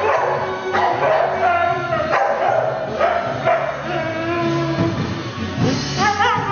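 Siberian husky howling and yowling along with a drum kit being played, its wavering cries over the drum hits, with a warbling rise-and-fall howl near the end.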